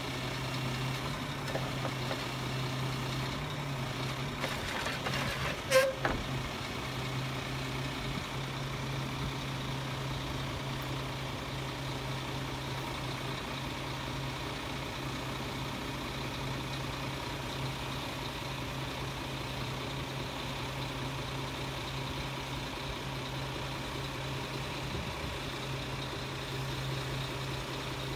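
Scania G480 truck's diesel engine running steadily while it drives the Jonsered loader crane's hydraulics as the boom and grapple move. One sharp clank stands out about six seconds in.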